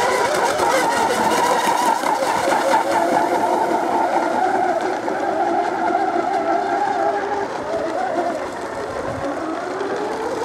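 Several 1/8-scale model racing hydroplanes' engines running at high revs as they race, their overlapping pitches wavering as the boats turn and speed along; the sound eases off a little late on.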